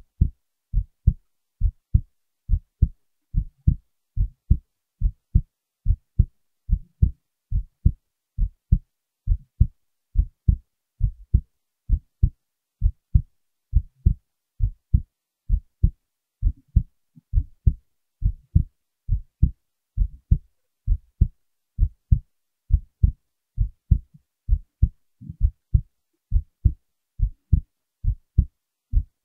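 Heartbeat: steady, regular lub-dub pairs of low thumps, a little over one beat a second.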